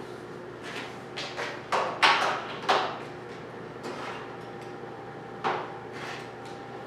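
Scattered clunks and knocks of equipment being handled, several close together about two seconds in and one more near the end, over the steady hum of a switched-on MIG welder.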